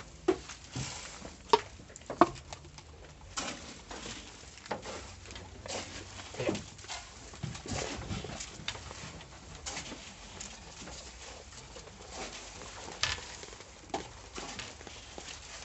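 Goats feeding from a wooden trough: irregular knocks and rustles as they root in the grain, the loudest knocks about one and a half and two seconds in.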